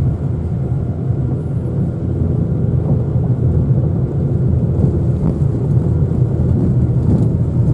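A car's engine and tyres rumbling steadily, heard from inside the cabin while driving on a rough country road.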